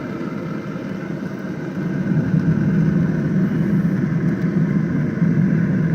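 Davy Crockett pellet grill's fan and fire pot running as the pellets ignite: a steady low rushing noise that grows louder about two seconds in.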